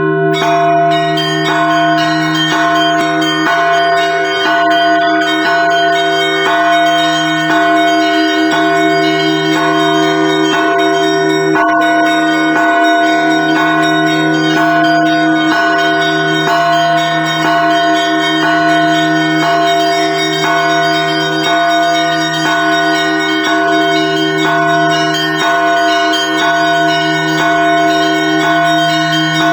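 Orthodox church bells rung together in a continuous peal: deep bells hum steadily underneath while smaller bells are struck over and over in a quick, regular rhythm.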